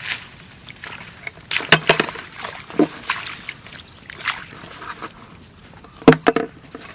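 Irregular sloshing and splashing in shallow muddy water, mixed with rustles and scattered clicks, with a sharp knock about six seconds in.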